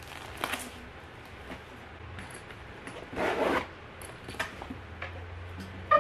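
Plastic folders brushing into a fabric school backpack, then the backpack's zipper pulled shut in one quick half-second stroke about three seconds in.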